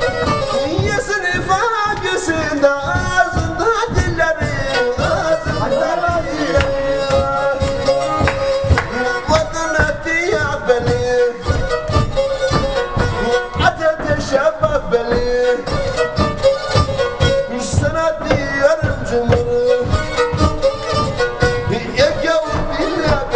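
Black Sea kemençe, a small three-stringed fiddle bowed upright, playing a lively folk tune over a steady, even beat.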